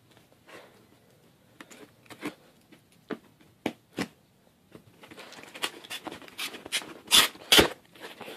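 Packing tape on a cardboard box being slit and scraped with a small blade: scattered short scrapes and clicks, then denser rustling and tearing of tape and cardboard, with two loud rips near the end.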